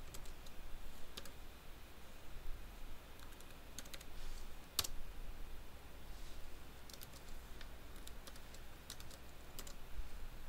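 Computer keyboard keys tapped faintly and sparsely, a password being typed at a prompt, with one louder keystroke about five seconds in.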